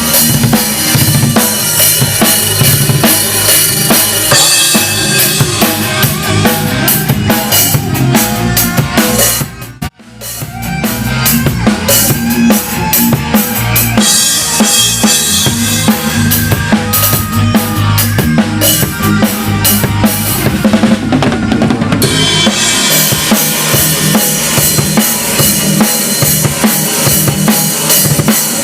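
Loud music with a driving drum-kit beat (bass drum and snare) played through a PA system for a sound check. It drops out suddenly for a moment about ten seconds in, then carries on.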